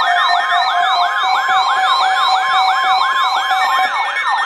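An electronic siren-style alert tone played over a radio, a fast yelp rising and falling about three times a second over a steady tone. It is the attention signal ahead of a relayed weather warning.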